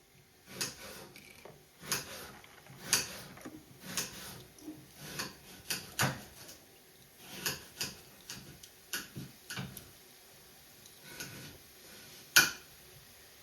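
Handling noise: irregular sharp clicks and taps of small hard objects, such as toy cars and plastic packaging, roughly one or two a second, with one much louder click near the end.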